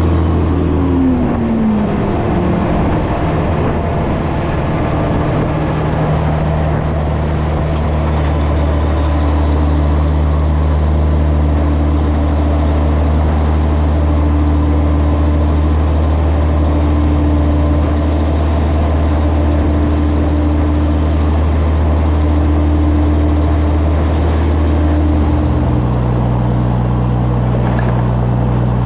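Diesel engine of a 1984 Peterbilt 362 cabover truck running steadily at highway speed, a steady low drone over wind and road noise. About 25 seconds in the engine note shifts pitch as exhaust smoke blows off the stacks.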